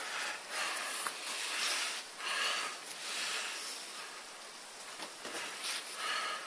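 Lace being drawn through a corset's metal grommets while the corset's fabric is shifted and smoothed by hand: soft rustling and scraping in several stretches with a few small clicks, quieter for a second or so in the middle.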